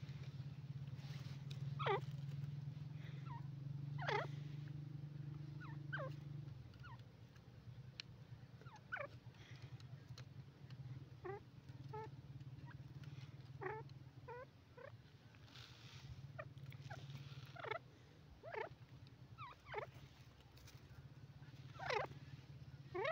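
Grey francolin calling: short, sharp notes that fall quickly in pitch, some single and some in quick runs of two or three, over a steady low hum that gets quieter about six and a half seconds in.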